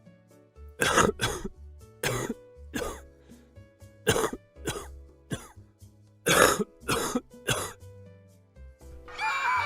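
A person coughing hard in repeated fits, about nine harsh coughs in clusters of two or three, over background music. Near the end a high, sustained cry starts.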